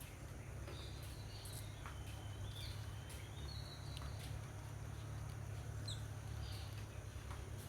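Garden ambience: faint whistled bird calls that glide in pitch, scattered light clicks and taps, and a steady low rumble underneath.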